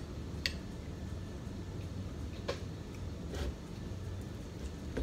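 Eating sounds: three short, sharp mouth clicks and smacks of someone chewing food, over a steady low hum.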